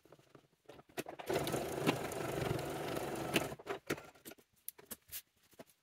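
Domestic sewing machine running for about two seconds, stitching a short run back over an existing seam through two layers of cotton fabric. Small clicks of handling come before and after it.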